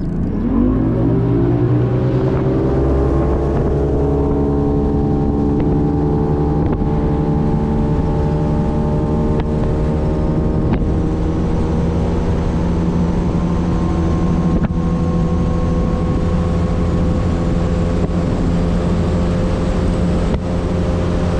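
Bass boat's outboard motor accelerating, its pitch climbing over the first few seconds, then running steadily at speed. It stops suddenly at the end.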